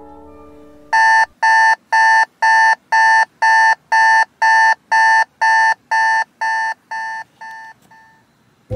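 Digital alarm beeping, about two short electronic beeps a second on one steady pitch; the beeps grow quieter and shorter over the last couple of seconds and then stop.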